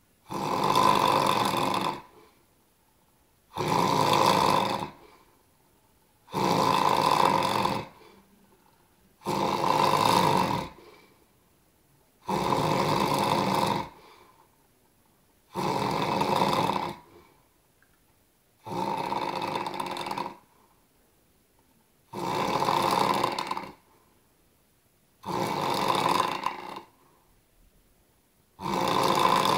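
Loud snoring: a rasping snore on each breath in, about every three seconds, with quiet pauses between.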